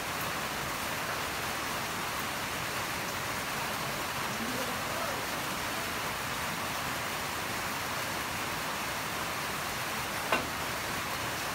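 A steady hiss of background noise, then about a second before the end a single sharp click as a pool cue tip strikes the cue ball.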